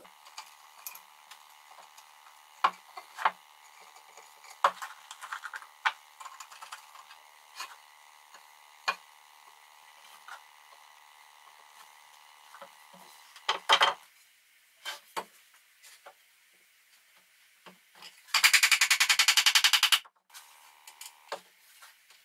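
Workshop handling sounds: scattered knocks and clicks of wooden table parts and tools being moved and set down on a wooden workbench, over a faint steady hum in the first half. Near the end a loud, even buzz lasts about a second and a half and cuts off abruptly.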